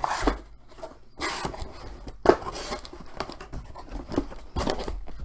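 Irregular rustling, scraping and tapping of small items and packaging being handled, with a few sharp clicks.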